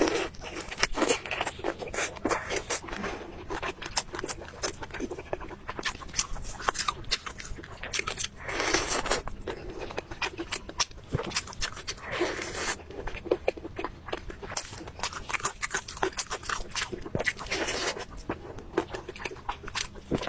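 Close-miked eating: a person chewing and crunching food, with many short clicks and a few longer noisy stretches of mouth sound.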